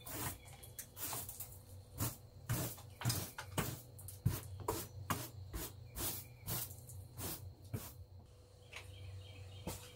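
Household broom sweeping a porch floor in quick, even strokes, about two a second, stopping about eight seconds in.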